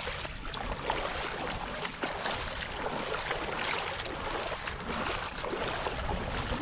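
Shallow seawater splashing and sloshing with many small crackling splashes, over a low rumble of wind on the microphone.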